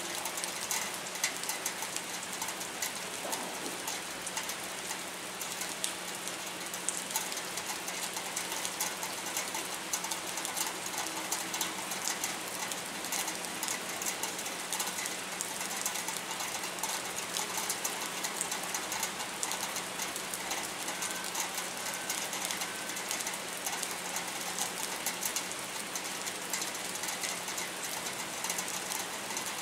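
Steady rain falling, a dense patter of drops on wet surfaces, with a steady low hum underneath.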